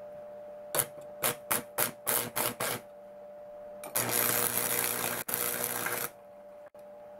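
Household 100V AC arc (stick) welder striking an arc: about eight short crackling bursts as the electrode sparks against the plate, then the arc catches and burns with a steady loud crackle for about two seconds before cutting off. The stutter at the start comes from the low supply voltage, which makes the arc hard to strike. A faint steady hum runs underneath.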